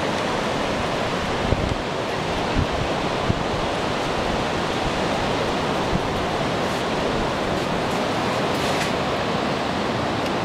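Ocean surf and wind making a steady, even rushing noise, with a few faint knocks.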